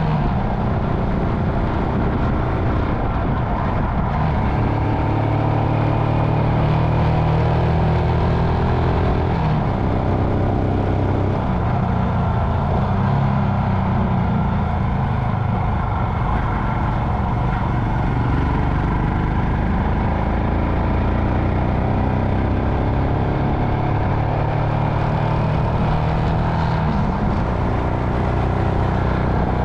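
Royal Enfield Himalayan's 411 cc single-cylinder engine running under way at a slow, steady pace, its note shifting up and down a few times with the throttle.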